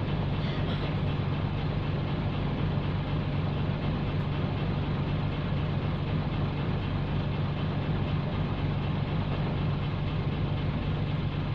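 Nissan Diesel PE6H straight-six diesel engine of a K-U31L bus running steadily at an even engine speed, with a constant low drone.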